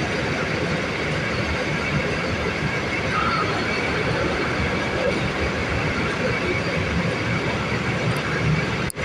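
Steady, loud rumbling noise of fire trucks' diesel engines running at idle, with the sound cutting out for a split second near the end.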